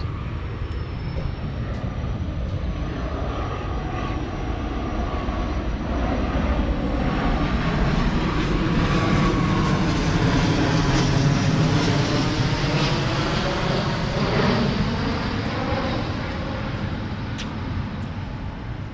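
A propeller aircraft flying over, its engine drone swelling to a peak about halfway through and then fading away.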